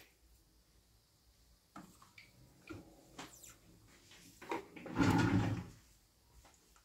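Faint clicks, then a brief louder clatter about five seconds in, as the opened Dell Optiplex GX280 desktop is handled and switched on.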